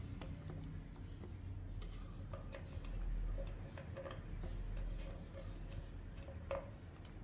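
Carrot slices being pushed off a wooden cutting board into a pot of broth: scattered light clicks and knocks, the sharpest about six and a half seconds in.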